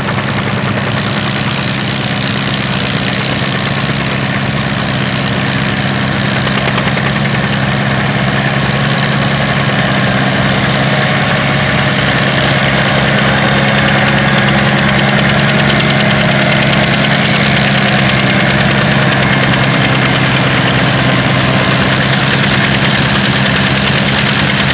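John Deere 1010 tractor's four-cylinder engine running steadily under load as it pulls a plow through dry ground.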